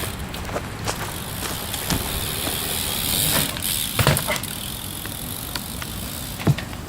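BMX bike being ridden: a steady hiss of tyres and air, with a few sharp knocks, the loudest about four seconds and six and a half seconds in.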